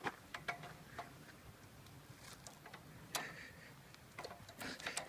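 Faint, irregular clicks and knocks: a large stick held crosswise in a dog's mouth bumping against a chain-link fence at the entrance to a wooden footbridge, the stick too wide to pass through.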